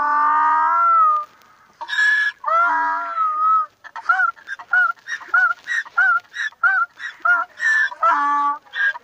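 Donkey braying: a long first call, then from about four seconds in a string of short, quick hee-haw cycles, about two a second.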